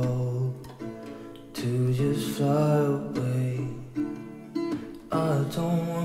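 Background music: a song with acoustic guitar strumming under a singing voice.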